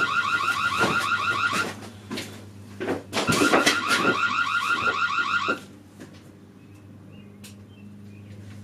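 A rapidly pulsing electronic alarm tone sounds in two bursts of about two seconds each, the second starting about three seconds in and stopping about five and a half seconds in, over a low steady hum.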